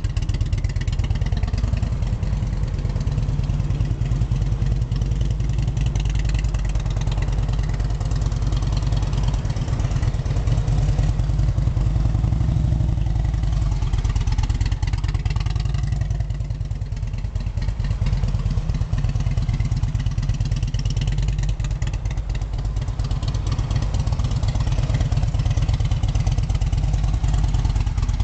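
Harley-Davidson V-twin motorcycle engine running at low revs while the bike is ridden slowly, with a steady, fast low pulse; it grows a little quieter for a couple of seconds around the middle.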